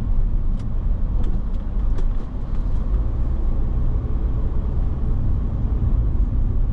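Car driving on a city road: a steady low rumble of engine and road noise, with a few light clicks.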